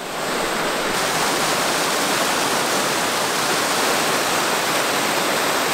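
A small cascade on a hillside stream: water rushing steadily over rocks and into a pool, fading in at the start.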